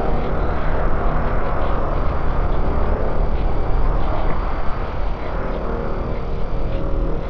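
Dark ambient drone: a dense, steady low rumble with faint held tones above it that thin out midway and come back near the end.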